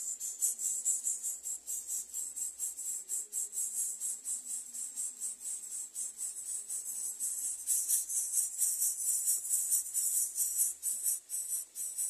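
Insects chirring in a fast, even, high-pitched pulse of about five beats a second, growing louder about two-thirds of the way through.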